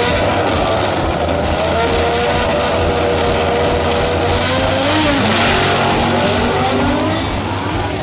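1971 Plymouth Duster drag car's engine revving hard at the start line during a smoky burnout, its rear tires spinning, with tire noise under the engine. The engine pitch wanders, dipping and rising again about halfway through.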